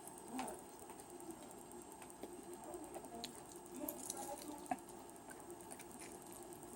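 Faint eating sounds of chicken wings: scattered small clicks, smacks and wet mouth noises of chewing. The sharpest click comes a little under five seconds in.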